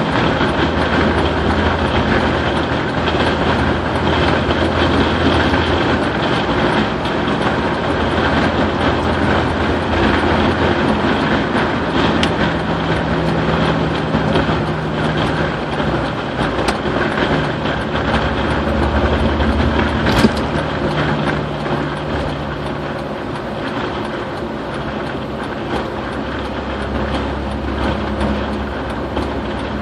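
Road noise heard inside a car cruising on a concrete highway: steady tyre and wind noise over a low engine hum. There is a single sharp click about twenty seconds in.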